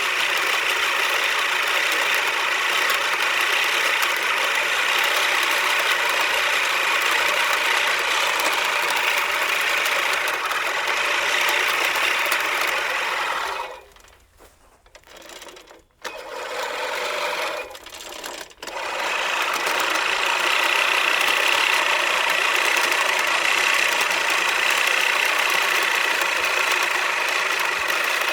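Lawn mower engine running steadily. About halfway through the sound drops away almost to nothing for about two seconds, comes back weaker with two brief dips, then runs steadily again.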